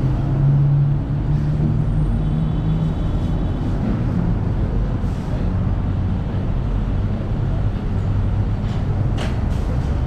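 Steady low rumble of city traffic, with a low hum in the first few seconds and one sharp click about nine seconds in.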